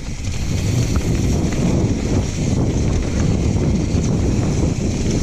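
Wind rushing over an action camera's microphone as a mountain bike rolls fast down a dirt trail, mixed with the tyres on dirt and gravel and small rattles from the bike.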